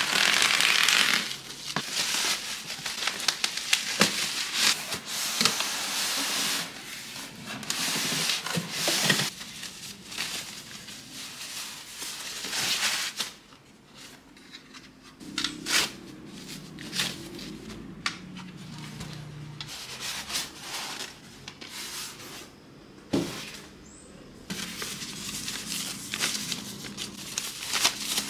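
Unboxing noises: bubble wrap cut with scissors and pulled off a cardboard box, then plastic bags and styrofoam packing rustling and crinkling as parts are lifted out. The rustling is loudest in the first half; after that the handling is softer, with scattered sharp knocks and clicks.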